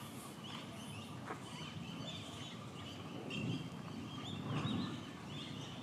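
Outdoor animal ambience: many short, high chirping calls repeating throughout, over a low murmur that swells twice.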